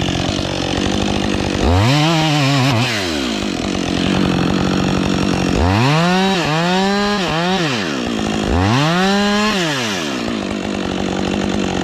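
Gas chainsaw idling and revved up into a redwood trunk three times to cut the face notch, the engine pitch climbing and falling back each time. During the middle cut the pitch sags as the chain pulls through the wood.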